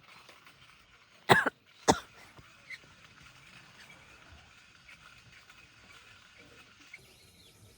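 Two short coughs about half a second apart.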